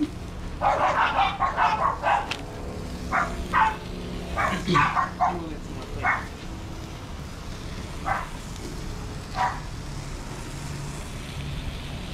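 A dog barking: a quick run of barks in the first couple of seconds, then single barks a second or so apart that thin out toward the end.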